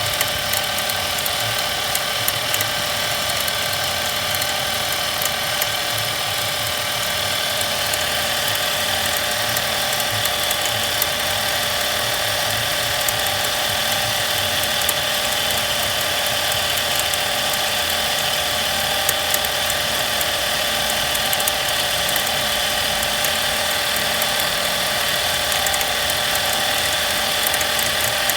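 Nissan Qashqai J11 engine bay with the engine running: a steady whine and irregular ticking knocks from a worn alternator bearing.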